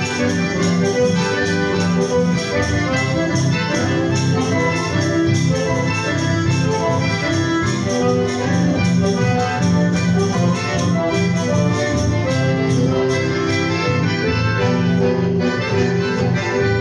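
Chamamé played live on a button accordion and a bandoneón together, with many reedy notes and chords held and changing continuously.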